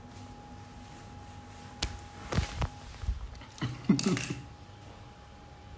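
Clicks and soft knocks as a phone is handled, then a short chuckle.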